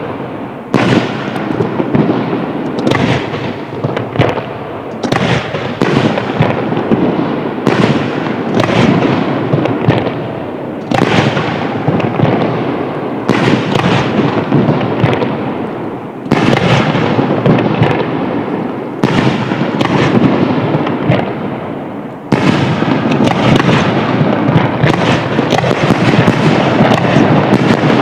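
Aerial fireworks bursting in quick succession, with booms and crackling overlapping. It swells into a near-continuous, louder barrage for the last several seconds.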